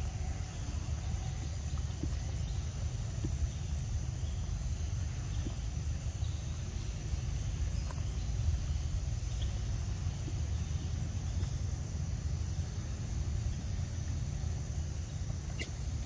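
Steady low wind rumble on the microphone, with a constant high-pitched insect drone from the forest and a few faint ticks.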